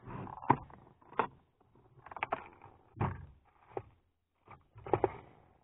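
Irregular knocks and clunks, about half a dozen, with some rustling between them, as fishing tackle is handled in an aluminum boat.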